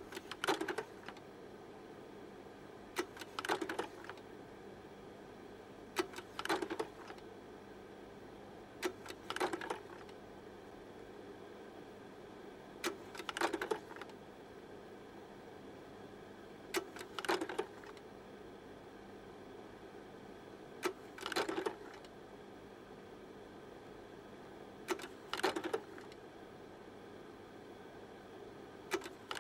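Short bursts of sharp mechanical clicking, a few clicks at a time, repeating about every three to four seconds over a faint steady hum.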